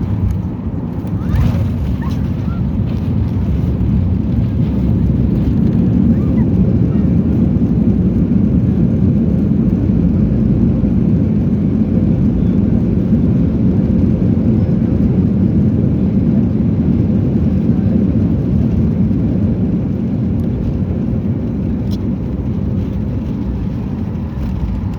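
Cabin noise inside a Boeing 737-800 airliner: a loud, steady low rumble of engines and airflow that swells a few seconds in and then holds.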